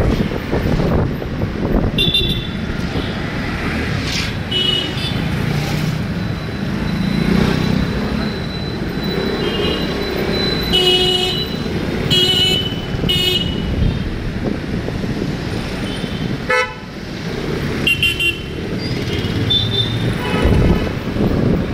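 Busy road traffic with vehicle horns honking again and again in short toots, over a steady rumble of engines and road noise.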